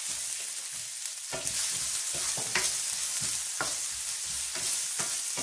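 Diced potatoes sizzling in hot oil with mustard seeds in a nonstick frying pan. A spoon stirring them taps and scrapes against the pan about once a second.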